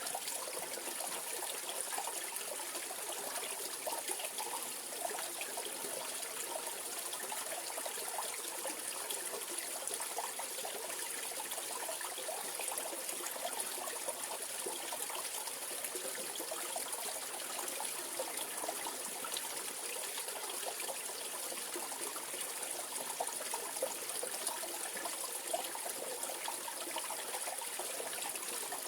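A mountain stream running over rocks, a steady rushing and trickling of water.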